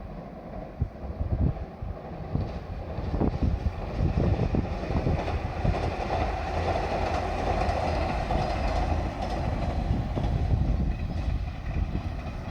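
A JR Shikoku Series 185 limited express diesel multiple unit passing close by. Its wheels clack over the rail joints in quick succession, and the running noise of the train swells to its loudest about halfway through before easing off.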